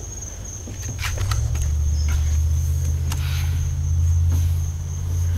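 A vehicle's low engine rumble comes in about a second in, swells and holds steady. Crickets keep up a steady high trill underneath.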